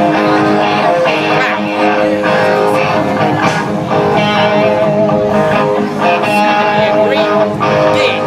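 Live band music played loud through a PA, led by amplified guitars with held, wavering notes.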